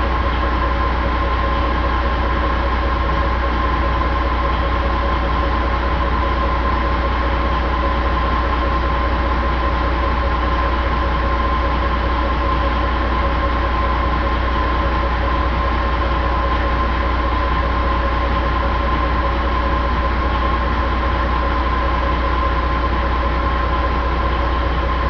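Detroit Diesel Series 60 11.1-litre inline-six turbo diesel engine running steadily on a test stand, a deep rumble with a steady high whine over it.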